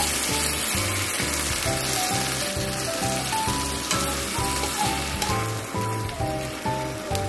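Background music with a steady beat over a continuous sizzle from hot stir-fried green peppers in a frying pan.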